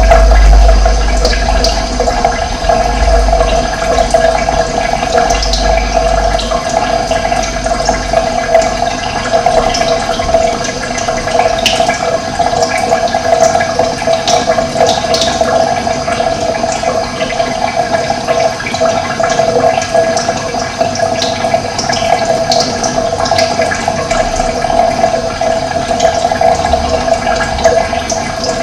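Steady rush of running water, with short high bird chirps scattered over it. A low rumble sits under the water for the first several seconds, then fades out.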